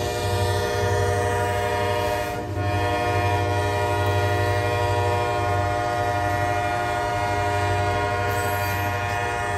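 Freight diesel locomotive horn sounding in a long held blast, with a brief break about two and a half seconds in, over the low rumble of the passing locomotives and freight cars.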